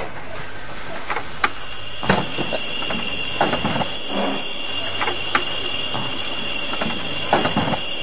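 Insects chirring at night: a steady high trill comes in about two seconds in, over a constant background hiss. Scattered light knocks and short scraping sounds are heard through it.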